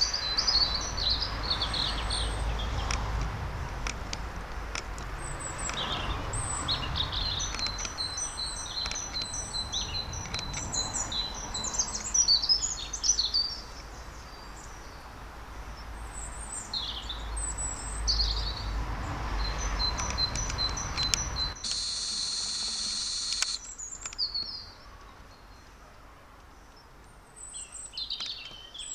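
Small songbirds chirping and singing, with many short high calls and quick runs of repeated notes, over a low rumble that drops away about two-thirds of the way through. Just as the rumble stops there is a dense, high-pitched burst lasting about two seconds.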